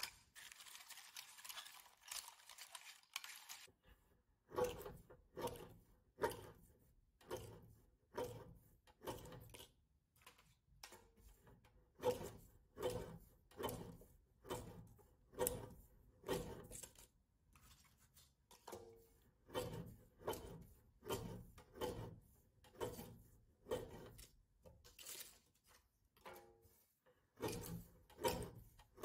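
Lever-arm guillotine paper cutter chopping a strip of swatch cards into small pieces: a short, sharp cut repeated over and over, about one to two a second, after a soft rustle of paper in the first few seconds.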